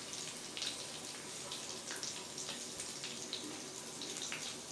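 Chopped onion frying in hot oil in a kadhai over a low gas flame: a steady soft sizzle with scattered small crackles.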